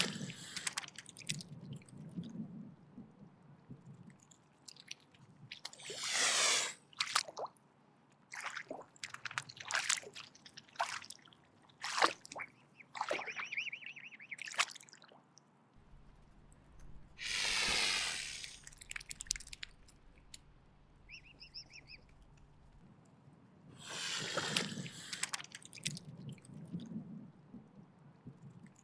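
Mute swan hissing in defence: four long, rasping hisses of about a second each, with short clicks and snaps in between.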